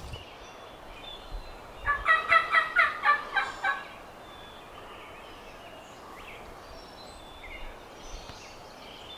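A Merriam's wild turkey gobbler gobbling once, a rapid rattling call of about two seconds that starts about two seconds in.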